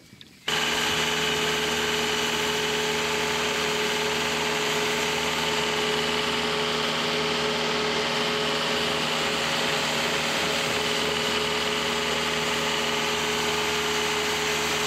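Motorboat engine running steadily at speed while towing a wakeboarder, under a constant rushing hiss. It starts abruptly about half a second in.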